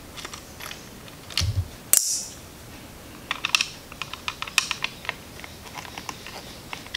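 Light clicking and tapping of a Phillips screwdriver working the small screws on a motorcycle fuel pump assembly's plastic housing, in quick irregular runs, with a dull thump and then one sharper knock about two seconds in.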